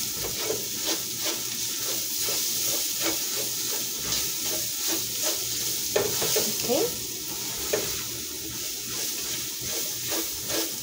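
Onions sizzling steadily as they fry golden brown in a pot, with a spoon scraping and clicking against the pot again and again as they are stirred.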